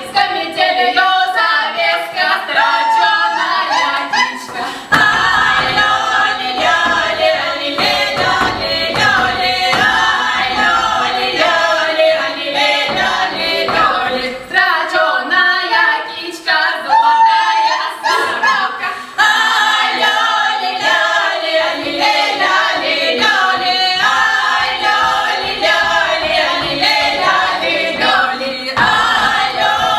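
Women's folk ensemble singing a south Russian village song from the Voronezh tradition a cappella, several voices together, with short breaths between phrases.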